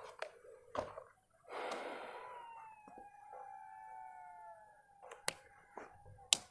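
A dog howling faintly: long drawn-out notes that fall slightly in pitch and overlap, with a few light clicks near the end.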